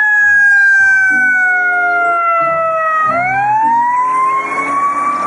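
Fire engine siren wailing: the pitch falls slowly for about three seconds, then sweeps quickly back up and holds high. This is the warning signal of a fire truck leaving on an emergency run.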